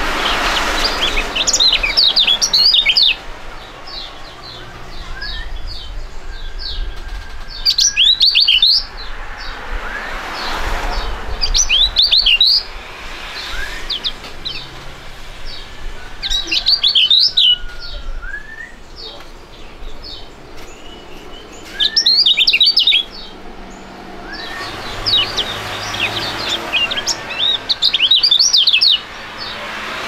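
Caged white-eyes (kecial) singing in a duet: loud bursts of rapid, high twittering song every few seconds, with a few thinner whistled notes in the quieter stretches between.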